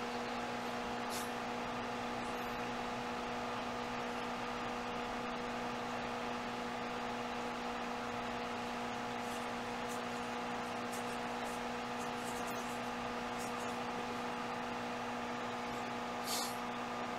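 Steady electrical hum with an even hiss, with a few faint clicks and a slightly louder one near the end.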